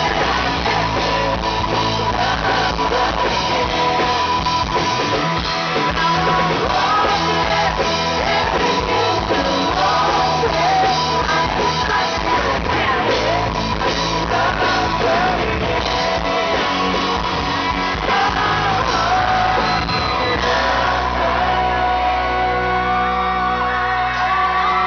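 A live pop-rock band playing through a concert sound system, with electric guitars and a male lead vocal, and the crowd shouting along.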